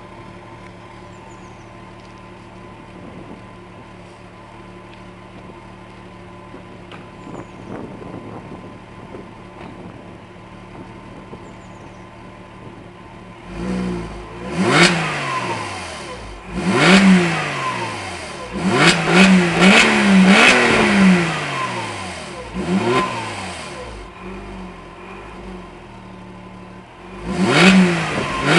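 Porsche Boxster engine with a sports exhaust idling steadily, then revved in about six quick blips from roughly halfway through, each rev rising sharply and dropping back to idle.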